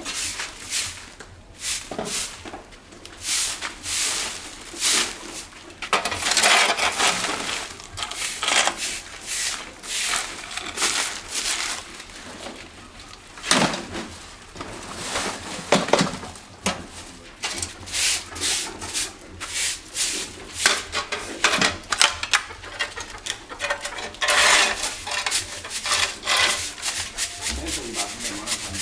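Household cleaning work: many irregular scraping and rubbing strokes, mixed with small clinks.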